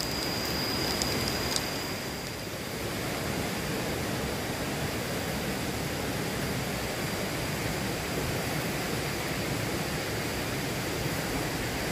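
Steady, even rushing noise of running stream water. A thin high steady whine sounds over it and stops about a second and a half in.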